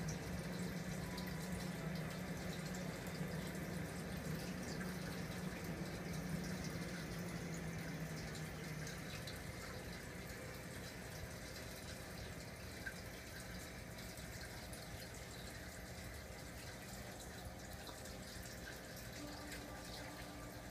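Reef aquarium's water circulation running: a steady trickling and splashing of water, with a low hum that stops about nine seconds in.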